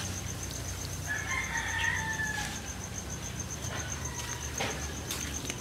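A rooster crowing once, a single pitched call of a little over a second, followed by a few light clicks.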